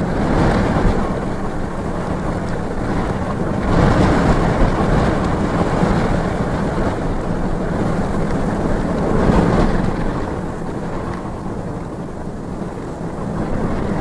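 Strong gusting wind buffeting the microphone, a loud, rough rush that swells with gusts about four seconds in and again about nine seconds in, then eases a little before rising again at the end.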